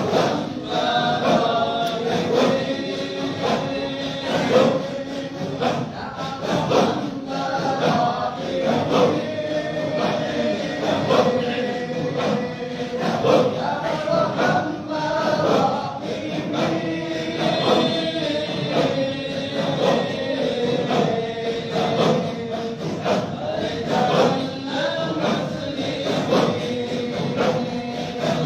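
A group of voices chanting together in unison, holding long notes: congregational dhikr chanting.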